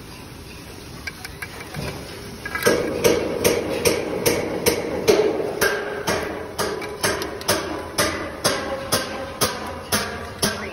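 Sharp knocks repeating about twice a second, starting about three seconds in: a steel trowel tapping hollow clay bricks down into their mortar bed as they are laid.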